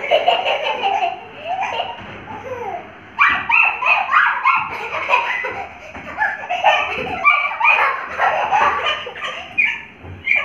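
A child laughing, in long runs of quick repeated peals that start about three seconds in.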